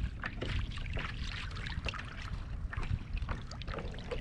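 Small waves lapping and slapping irregularly against the hull of a kayak, over a low rumble of wind on the microphone.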